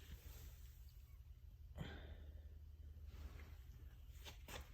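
Near silence: a low steady hum with a few faint, brief rustles.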